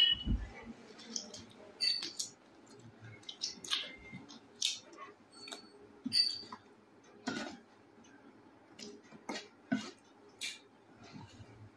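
Close-up eating sounds of a meal of rice and chicken curry: scattered short wet mouth clicks and smacks with soft taps against a plate, a few every second.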